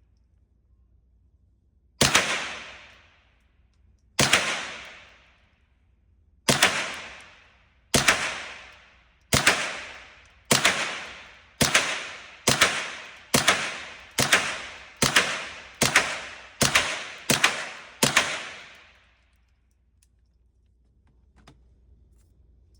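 A string of fifteen single gunshots from a firearm, each followed by about a second of echo. The shots start about two seconds apart and speed up to under a second apart before stopping.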